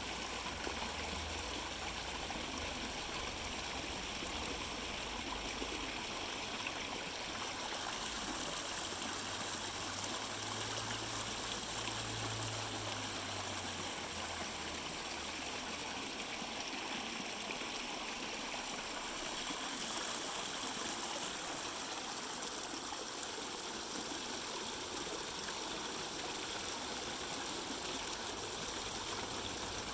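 Fountain water splashing and trickling steadily.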